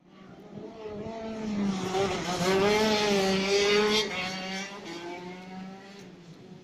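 Go-kart engine driving past on the track: it grows louder to a peak about three to four seconds in, then fades as the kart pulls away, its pitch rising and falling with the throttle.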